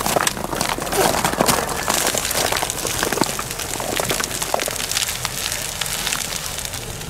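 Ice axe pick chopping and scraping at soft glacier surface ice: a dense run of crunching, crackling strikes as the ice breaks into loose granular crystals, whose bonds the sun has weakened.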